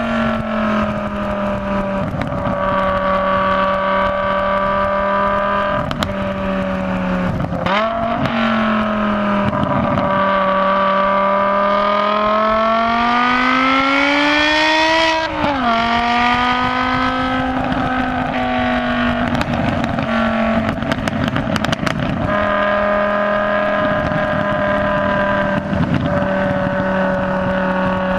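BMW M6 engine running hard on track, heard from a hood-mounted onboard camera: mostly holding a steady pitch through corners, with a quick dip and blip about a third of the way in, then a long rise in pitch under acceleration just past the middle, cut by a sudden drop at an upshift before it steadies again. Wind buffets the microphone now and then.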